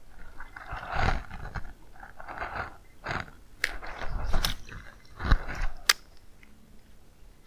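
Irregular crunching, rustling handling noise with three sharp clicks in the middle of the stretch, from a fishing rod and reel being worked as a small lure is cast and retrieved.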